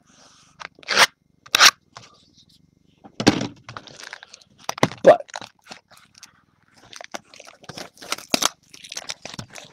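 Shrink-wrapped trading-card hobby boxes being handled: plastic cellophane wrap crinkling and crackling in irregular bursts as the boxes are moved and the wrap is worked.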